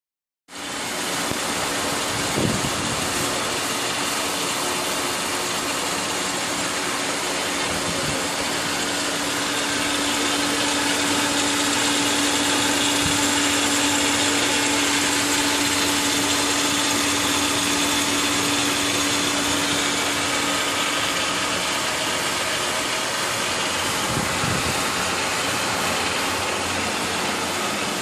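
Home-made external recirculating cone protein skimmer running on its pump: a steady rushing noise of water and air with a constant hum, the hum dropping out about three-quarters of the way through.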